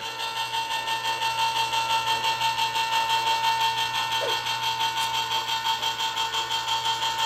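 Hamilton Beach electric can opener running steadily as it turns a jumbo-size can and cuts the lid free: a continuous motor whine with a fast, even pulsing.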